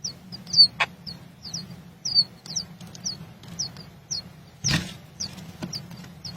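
A bird calling over and over in short, high, falling chirps, about two a second. A brief noisy burst cuts across them about four and a half seconds in.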